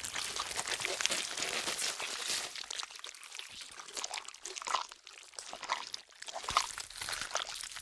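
Zombie bite gore sound effect: wet tearing and chewing of flesh, a dense run of small crackles and squishes with a few louder pops in the second half.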